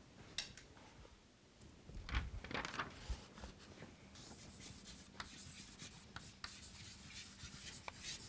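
Chalk scratching and tapping on a blackboard as words are written, faint. There are a few sharper taps about two to three seconds in, and steadier scratchy strokes in the second half.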